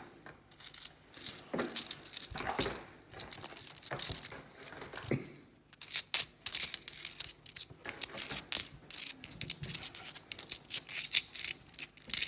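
A handful of UK 50p coins clinking against each other as they are handled and thumbed through in the palm: a few scattered clinks at first, then from about halfway a quick, busy run of sharp metallic clicks.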